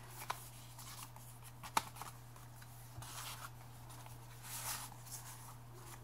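Quiet rustling and sliding of paper as journal pages and paper tags are handled and pulled from their pockets, with two light sharp clicks, the louder one just under two seconds in.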